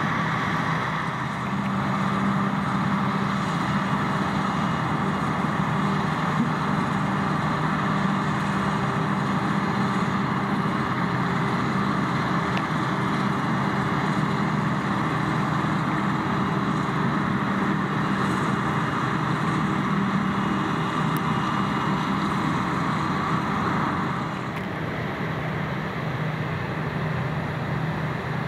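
Krone BigX 770 self-propelled forage harvester running steadily under load as it chops maize and blows it into a trailer, with a tractor engine running alongside. Near the end the sound turns a little quieter and duller.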